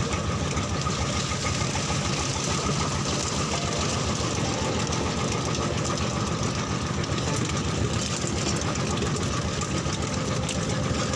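A fishing boat's engine idling steadily, with a fast, even knock.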